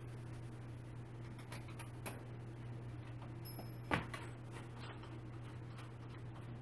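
Faint ticks and clicks of chair parts and hardware being handled during assembly, with one sharper click about four seconds in, over a steady low hum.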